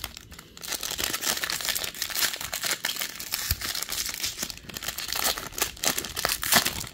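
Wrapper of a Topps jumbo pack of baseball cards being torn open and crinkled by hand: a dense, steady run of sharp crackles and rustling that starts about half a second in.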